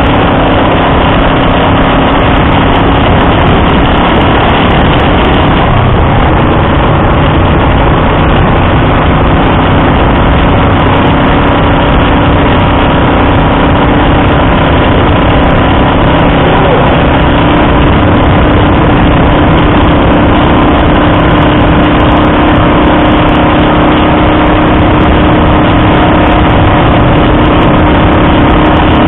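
Honda Dream CL250's air-cooled parallel-twin engine running at a steady cruising speed, heard from the bike itself over a steady rush of wind and road noise.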